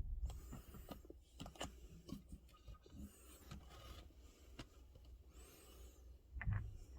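Hands working on a truck seat armrest and its bolt: scattered clicks, rubbing and scraping of parts, with a dull thump at the start and another near the end.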